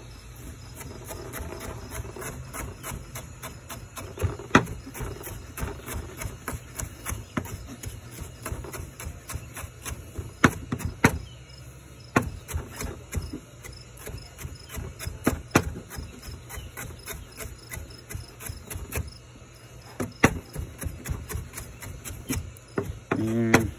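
Chef's knife dicing tomato on a plastic cutting board: quick, irregular knocks of the blade against the board, several a second, with a few sharper, louder chops along the way.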